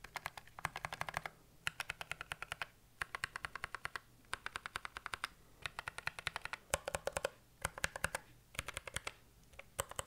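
Keychron K3 Pro mechanical keyboard with low-profile Gateron Brown tactile switches being typed on in quick runs of keystrokes, about ten a second, broken by short pauses. The key presses are light and fairly quiet.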